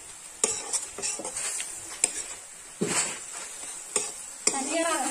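Steel ladle scraping and knocking against a black metal wok while leafy greens are stirred, over a steady sizzle of frying.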